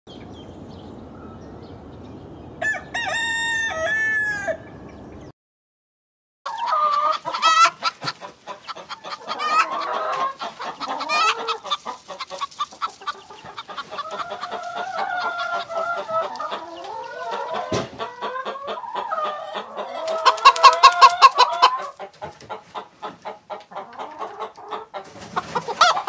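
A rooster crows once, about three seconds in. After a short break, hens cluck and cackle again and again, with a loud run of rapid clucks about twenty seconds in.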